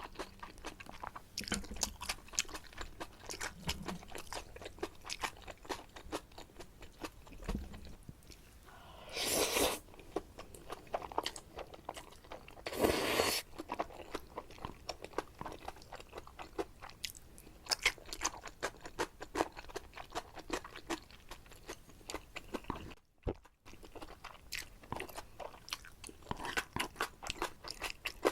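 Close-up eating sounds of black bean noodles with shrimp and squid: continuous wet chewing with many small mouth clicks. Two longer, louder noodle slurps come about nine and thirteen seconds in.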